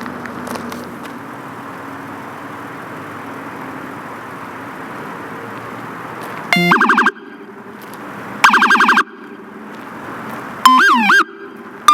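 Federal Signal SS2000SM electronic siren on a Toyota LC76, tried in short bursts over a steady background hum. Two brief blasts of a pulsing tone come about two seconds apart, then near the end quick rising-and-falling wail sweeps start.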